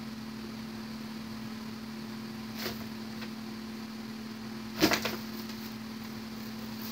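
Cat pushing into and shoving a cardboard soda case on a tile floor: a faint scuff about two and a half seconds in, then, about five seconds in, a sudden loud rustle and scrape of cardboard made of a few quick knocks. A steady low hum runs underneath.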